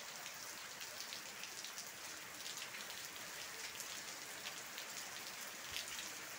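Steady rain falling on roofs and foliage, a constant hiss made of many small drop impacts.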